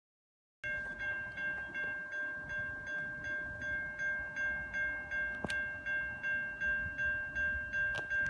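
Railroad grade-crossing warning bell ringing in a steady rhythm of about three strokes a second, starting just under a second in: the crossing is activated for an approaching train. Two short clicks can be heard over it.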